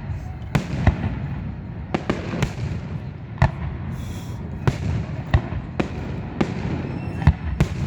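Aerial fireworks bursting: about a dozen sharp bangs at uneven intervals over a steady low rumble.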